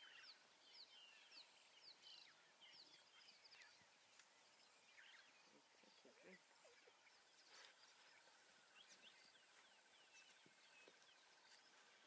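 Very quiet bush ambience: faint, scattered bird chirps and calls, with a faint steady pulsing trill joining about halfway through.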